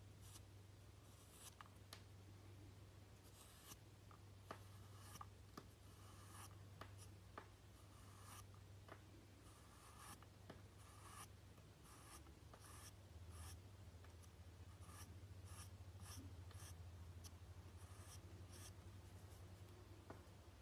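A drawing tool scratching short strokes across a porcelain surface, faint and irregular, over a steady low hum.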